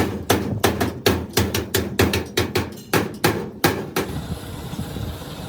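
Rapid hammer blows, about four a second, that stop about four seconds in, leaving a steady low hum.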